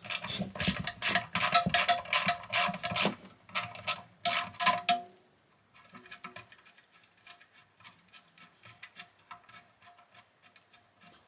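Metal hand tools clicking and rattling quickly for about five seconds as a bracket is worked loose, then fainter scattered ticks and handling. A faint steady high whine joins partway through.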